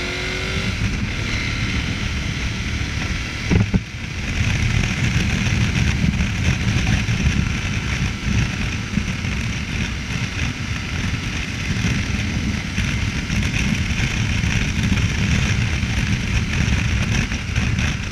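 KTM 1050 Adventure's V-twin engine running under way through an Akrapovic exhaust. The engine note dips briefly about three and a half seconds in, then comes back louder.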